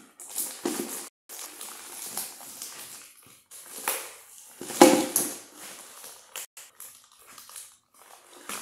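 Plastic and cardboard packaging being pulled and torn away by hand in uneven bursts of rustling and scraping, with a louder burst about five seconds in.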